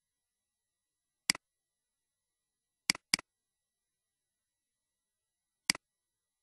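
Computer mouse clicks: a single click, then a quick double-click about a second and a half later, then one more single click near the end.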